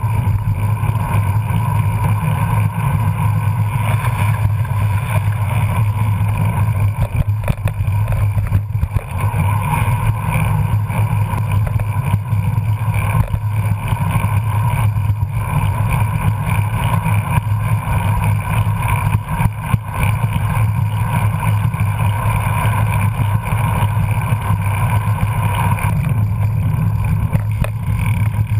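Steady rush of wind and road rumble on a bicycle-mounted camera's microphone as the bike rolls along a paved trail, loud and unbroken, with a deep low rumble underneath.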